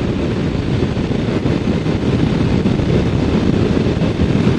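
Kawasaki Ninja 400 parallel-twin motorcycle riding at a steady speed, its engine and road noise mixed with wind rushing over the microphone.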